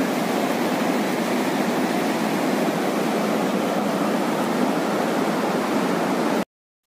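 Steady rush of the Mandakini, a mountain river tumbling over boulders, which cuts off suddenly about six and a half seconds in.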